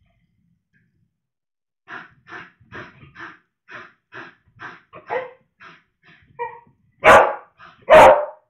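Beagle puppy barking in excited play: a run of short yips about twice a second, then two much louder barks near the end.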